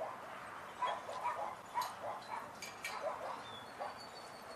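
Dogs barking and yipping in short, quick calls, one after another.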